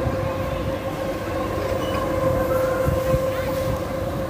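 Spinning amusement-park ride running: a steady mechanical whine over a continuous rumble.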